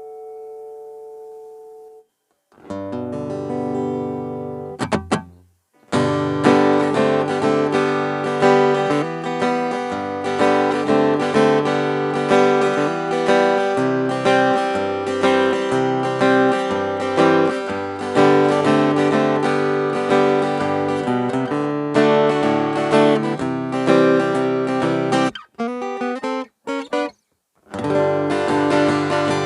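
Cort AD810 OP steel-string acoustic guitar strummed in a steady rhythm through a chord progression. First a held chord dies away, and after a short pause a chord rings and a few quick strokes follow. The strumming stops with a few choked strokes a few seconds before the end, then starts again.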